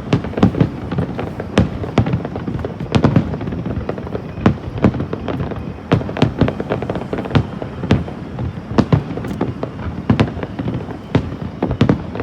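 Aerial fireworks display going off: a rapid, irregular run of loud shell bursts and crackling reports, several a second, over a continuous rumble.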